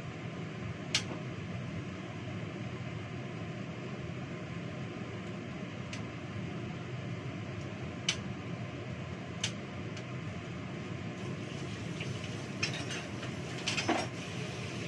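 Steady hum of a kitchen extractor fan, with a few single sharp clicks of utensils against a bowl and a quick run of clattering near the end as work moves to the sink.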